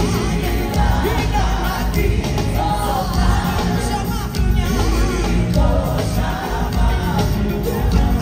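Live gospel music: a lead singer and backing vocalists singing over a band, with a strong bass line.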